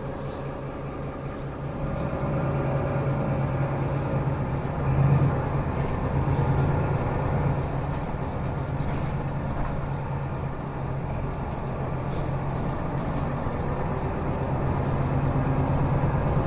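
Engine hum and road noise heard inside a moving city bus. It grows louder about two seconds in, with a brief louder swell around five seconds.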